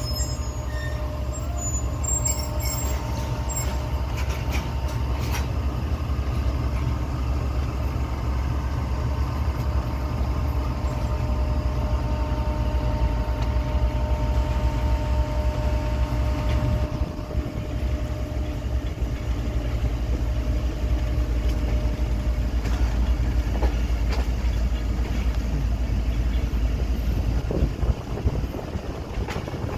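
Passenger train running along the track, heard from an open coach doorway: a steady low rumble of wheels on rail, with a steady whine over it that stops about seventeen seconds in, after which the rumble eases a little.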